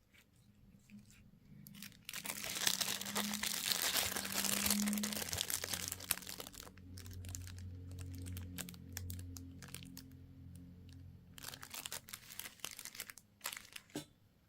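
Plastic candy wrapper crinkling and tearing as it is pulled open, in two spells with a low hum between them.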